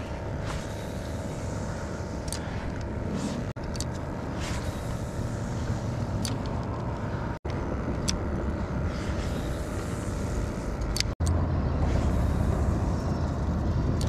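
Wind rumbling on the camera microphone over a faint steady hum, with a few light clicks. The sound drops out sharply three times where the clips are cut.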